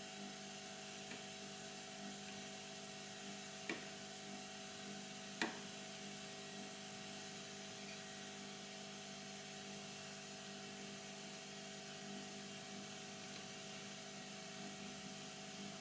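Steady electrical hum from workbench equipment, with two light clicks or taps about two seconds apart.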